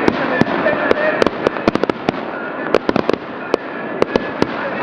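Fireworks display: a dense, steady crackle with many sharp bangs and pops at irregular intervals, several a second.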